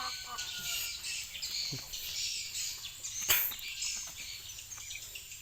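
Outdoor farmyard sound of birds chirping over a steady high hiss. A chicken's drawn-out call trails off about a second in, and a single sharp click sounds just after three seconds.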